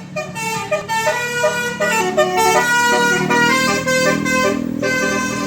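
A bus's basuri telolet horn, a multi-tone musical air horn, playing a quick melody of short notes that step up and down in pitch, with a steady low rumble beneath.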